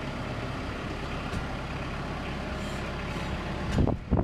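Tractor engine running slowly and steadily while reversing a hay wagon, with a few loud knocks near the end.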